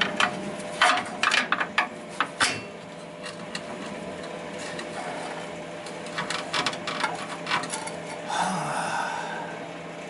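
Steel pry bar clinking and knocking against the truck's front axle and frame as it is levered to shift a part that won't move, in two spells of quick sharp clicks, then a short scrape a little after eight seconds.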